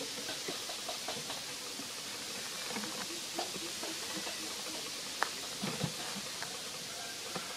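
Scattered soft clicks and small crackles of dry leaf litter and twigs, handled and shifted by a foraging long-tailed macaque, over a steady high hiss; one sharper click about five seconds in.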